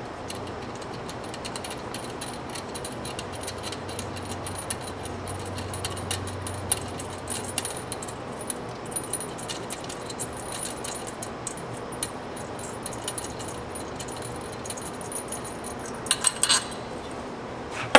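Light metallic clinks and clicks of hand tools and clutch parts being handled, scattered over a steady hiss, with a quick run of clicks near the end.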